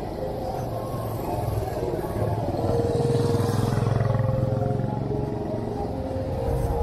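City street traffic, mostly motorbike engines running past, one passing close and louder about three seconds in.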